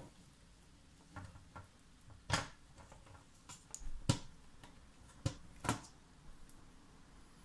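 Scattered light clicks and knocks from handling the plastic parts of a Roccat Skeltr keyboard while it is being taken apart, the sharpest about two, four and five and a half seconds in.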